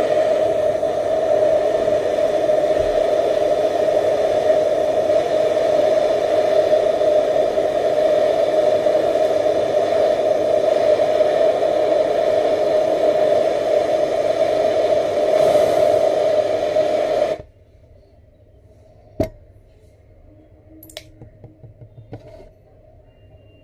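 Handheld gas torch burning with a steady hissing flame, then shut off abruptly about seventeen seconds in. A single sharp click follows about two seconds later.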